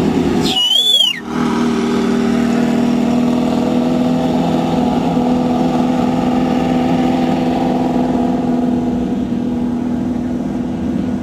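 Off-road race buggy engine running at a steady speed. About a second in there is a brief break with a short warbling squeal.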